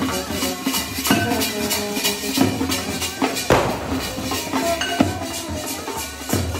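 Marching brass band playing a tune, brass horns carrying the melody over side drums and a bass drum, with frequent drum strokes and a loud hit about three and a half seconds in.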